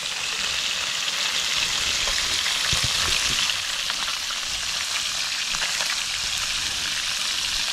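Small river fish, mojarras and tilapia, frying in hot oil: a steady sizzle with occasional small pops.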